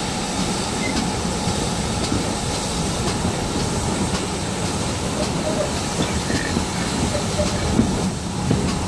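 Heritage passenger train behind a GWR 56xx class 0-6-2 tank locomotive running along the line, heard from an open carriage window. The wheels and coaches make a steady, even rumble, with a few faint clicks from the track.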